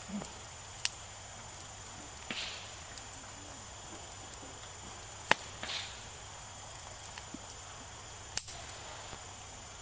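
Campfire crackling: a few sharp pops from the burning wood, the loudest about five seconds in, with short hisses in between.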